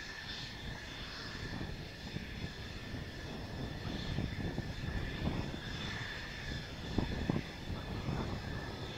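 Mitsubishi F-2B's single F110 turbofan running at taxi power: a steady high turbine whine over a constant low rumble, with two short swells in the rumble about seven seconds in.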